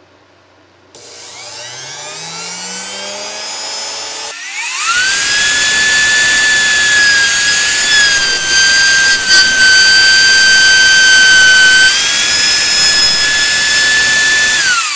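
Router starting up with a rising whine, then cutting a flute into a softwood spindle: a loud, steady high whine over a rush of cutting noise, sagging slightly in pitch under the load of a deep cut. Near the end it is switched off and winds down.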